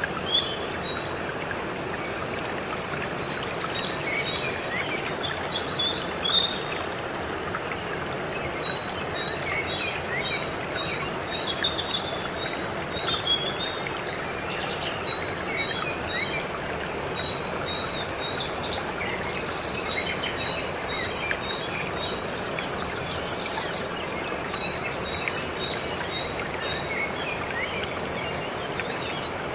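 Waterfall rushing steadily, with birds chirping over it in many short, high notes, some repeated in quick series.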